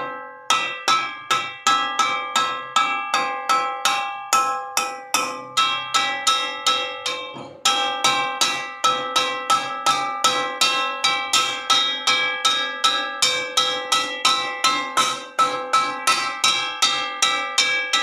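Metal wok struck repeatedly, about three strikes a second, each hit ringing on in several bell-like tones. There is a short break of about a second just before the eight-second mark.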